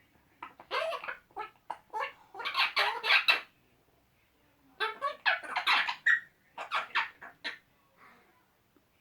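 Two eclectus parrots chattering at each other: two runs of short, rough squawks and mimicked sounds, with a second's pause between the runs.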